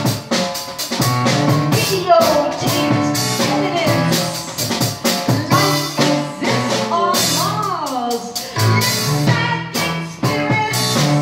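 Live band music: a drum kit and cymbals beaten steadily with sticks under a woman's voice singing into a microphone, the voice sliding up and back down about eight seconds in.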